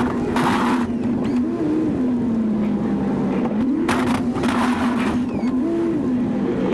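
Chevy 2500 pickup's engine running while plowing snow, its revs rising and falling several times. Short bursts of rushing noise come in near the start and again about four to five seconds in.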